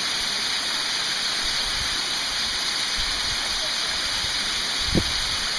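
Waterfall pouring down a rock canyon: a steady, unbroken rush of falling water, with one brief low thump about five seconds in.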